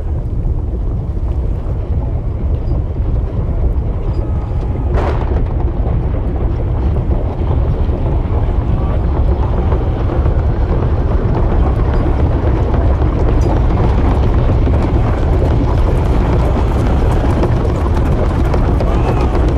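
Recorded storm-and-wind ambience used as a track interlude: a loud, steady, deep rumbling noise without melody. About five seconds in there is a short rushing sweep.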